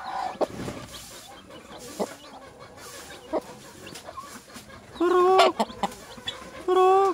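Broody hen on her nest with chicks, giving two loud drawn-out calls, each about half a second long, near the end.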